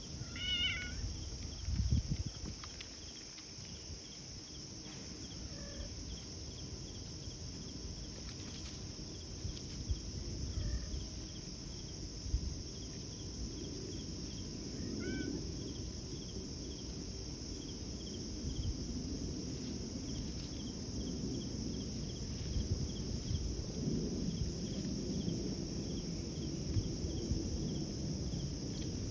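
Cat meowing, a short call about half a second in and a fainter one about halfway through, over a steady chorus of crickets.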